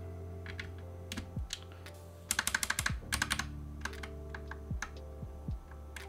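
Left shift key on a TM680 65% keyboard, fitted with a Box Cream linear switch, pressed repeatedly to test its stabilizer: scattered clacks, then a quick run of rapid presses a little over two seconds in. The stabilizer gives a weird tick on its right side, as if it is hitting something.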